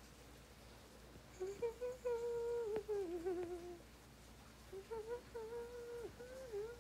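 A woman humming a tune in two phrases, the first ending on a wavering note about halfway through and the second starting about five seconds in.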